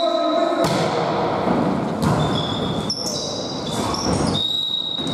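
Volleyball rally in a sports hall: the ball is struck several times, a second or so apart, with sneakers squeaking on the court floor between the hits.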